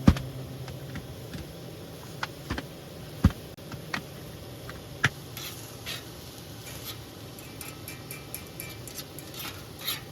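Wood campfire crackling: irregular sharp pops and snaps over a steady hiss, the loudest just at the start and about three seconds in.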